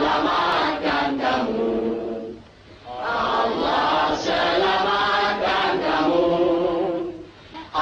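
A group of voices singing together after a count-in, in two phrases with a short break about two and a half seconds in.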